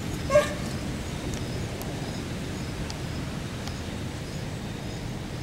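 Steady outdoor background noise with a few faint ticks and rustles, broken once about half a second in by a single short, pitched animal call.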